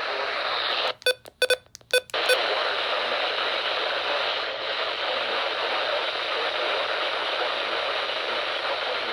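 Radio receiver static, a steady hiss. About a second in, it is broken by a quick run of short electronic beeps, with the hiss cutting out between them, before the steady static resumes.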